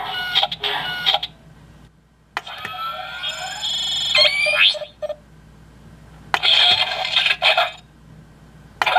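Electronic sound effects from an armored Baymax toy's small built-in speaker: about four short bursts of tinny beeping and sci-fi tones, the second one full of quick rising, sweeping zaps, with short pauses between them.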